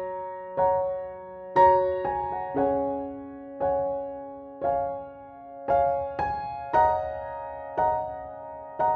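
Slow, gentle piano music: a note or chord struck about once a second, each left to ring and fade before the next.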